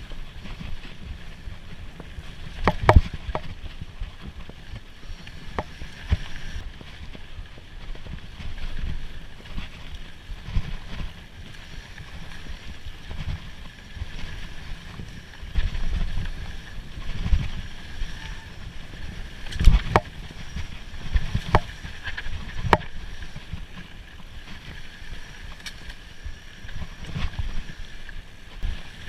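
Mountain bike ridden over a rough trail: wind on the microphone and uneven rumble from the tyres and frame, with sharp knocks and rattles as it hits bumps, the hardest a few seconds in and again about two-thirds of the way through.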